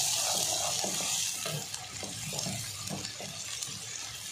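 Sliced onions with ginger-garlic paste frying in hot oil in a kadai, sizzling as they are stirred, with repeated scraping strokes against the pan. The sizzle is loudest at first and dies down within about two seconds.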